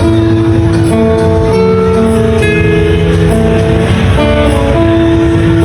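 Background music: a melody of held notes over a plucked guitar accompaniment.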